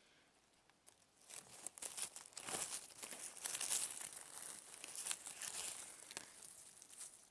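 Dry leaf litter and grass crackling and rustling under a hand as it works a porcino mushroom loose and pulls it from the soil, starting about a second in.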